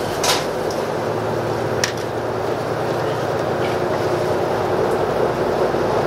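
Steady interior noise of a KiHa 85 series diesel railcar under way: a constant drone with a low hum, broken by a few short clicks.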